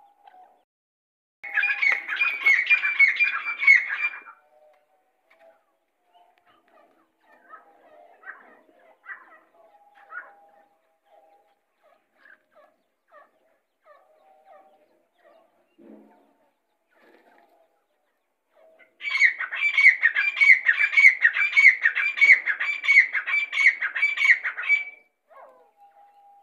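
Grey francolin (Irani teetar) calling: two loud runs of fast, repeated ringing notes, a short one about two seconds in and a longer one of about six seconds in the second half. Faint scattered chirps and low notes sound between them.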